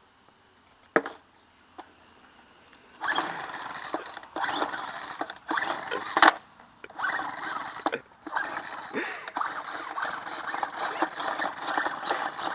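Old handheld gas leaf blower's recoil starter pulled over and over, a rasping whirr about once a second, without the engine catching. A couple of sharp clicks stand out among the pulls.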